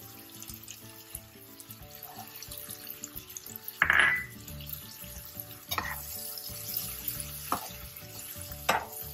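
Vegetables frying in a nonstick kadhai with a quiet sizzle, as green bell pepper strips are added and stirred. A loud clink with a short ring about four seconds in as the peppers go in, then three sharper clinks and scrapes of a metal slotted spoon against the pan.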